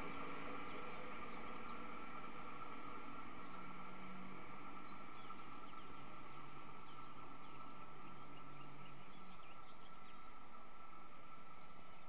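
Diesel railcar pulling away into the distance, its low engine drone dying out about nine seconds in, while small birds chirp. A steady high-pitched tone runs underneath.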